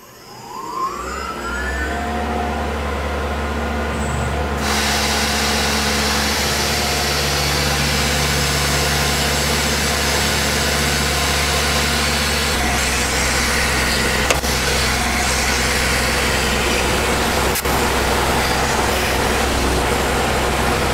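Tormach PCNC mill spindle spinning up with a rising whine, then, about four and a half seconds in, its end mill cuts into a fiberglass rifle stock with a steady hiss over a low hum.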